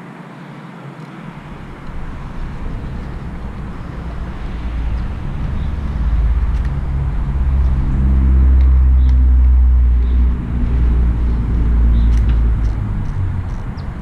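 A motor vehicle's engine going by, a low rumble that builds, is loudest about eight to ten seconds in, and fades near the end.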